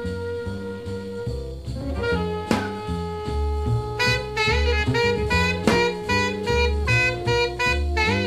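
Small jazz band recording: saxophones hold long notes over double bass and drums, then from about four seconds in the horns play wavering, bending lines together, with a couple of cymbal crashes.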